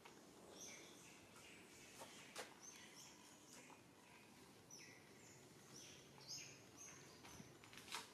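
Faint bird chirps: short, high calls that drop in pitch, repeated every second or so over a quiet outdoor background, with a few soft sharp clicks.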